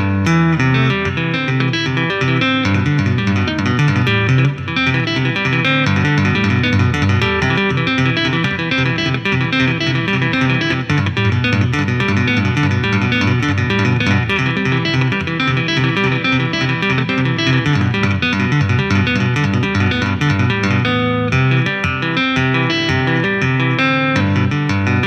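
Electric guitar played flat on the lap with two-handed tapping on the fretboard: a continuous run of quick tapped notes over lower notes.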